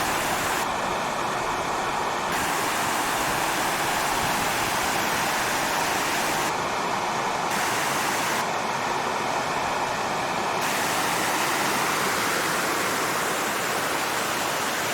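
Small waterfall cascading over rock steps into a pool: a steady rush of falling water.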